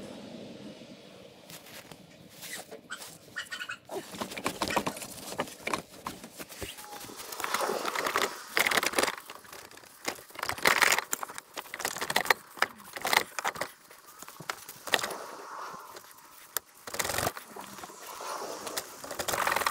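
Irregular clicks, clinks and rattles of hand work on a car's gearbox from underneath: tools and metal parts knocking together, busier after the first few seconds.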